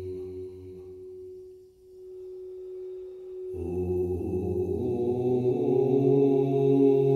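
Golden crystal singing bowl sounding a single steady, sustained tone as a mallet works its rim. About three and a half seconds in, a low man's voice starts a long, sustained chant over it, louder than the bowl.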